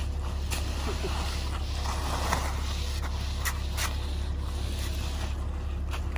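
Wet concrete being worked by hand: a rake and a screed straightedge scraping and dragging through the fresh mix in irregular strokes, over a steady low rumble.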